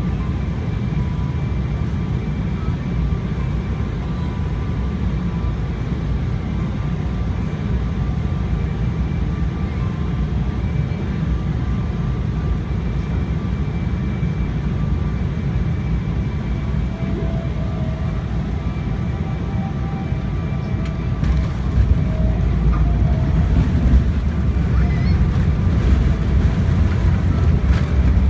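Cabin noise inside a Boeing 777 on final approach: a steady low rumble of engines and airflow with a faint high engine whine. About 21 seconds in it turns louder and rougher as the airliner touches down and rolls out on the runway.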